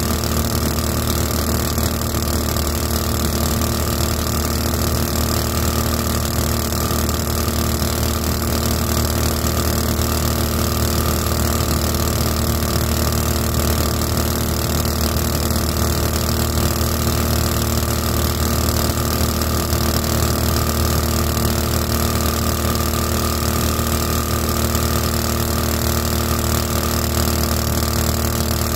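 Small 224 cc boat engine turning a 7-inch two-blade prop, running at a steady speed under way. The pitch holds even throughout, with no revving or throttle changes.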